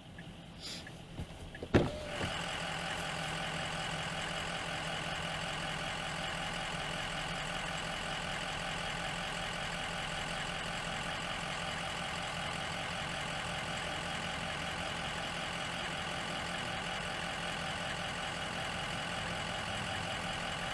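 A sharp click about two seconds in, then a vehicle engine starts up and runs at a steady idle.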